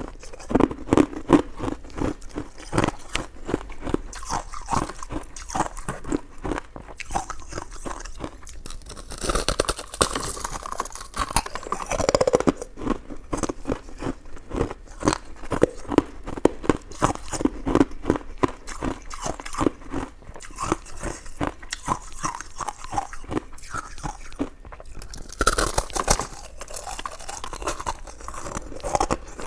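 Close-miked chewing of coconut sticky rice cake: a dense, continuous run of wet mouth clicks and smacks.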